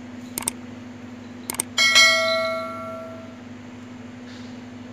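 Subscribe-button sound effect: two quick double clicks of a mouse, then a bright notification bell chime about two seconds in that rings out and fades over about a second and a half. A steady low hum runs underneath.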